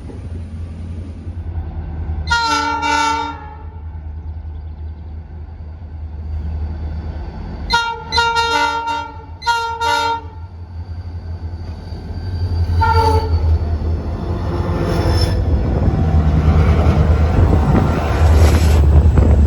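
Locomotive's multi-chime air horn giving a salute: two short toots, then a quick run of three, then one last brief toot, over the low rumble of the locomotive. The noise of the train passing grows louder after the horn.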